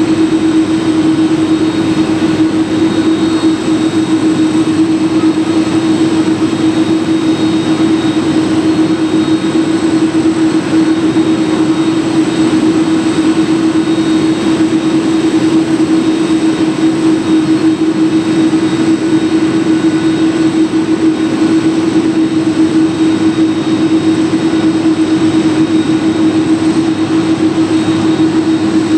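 Boeing 747-400's jet engines running steadily at idle: a constant loud drone with a low hum and faint high whistles, unchanging throughout.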